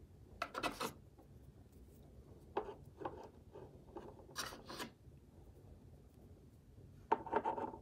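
Amethyst crystal points being set down and slid into place on a crystal grid: several faint, short scrapes of stone on the surface, scattered with pauses between them.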